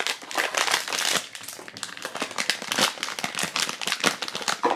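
Foil blind-box bag being crinkled and opened by hand: an irregular run of sharp crackles.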